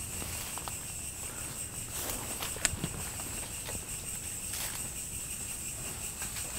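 Night insects trilling in a steady high-pitched chorus, with footsteps rustling through leafy undergrowth and a sharp snap about two and a half seconds in.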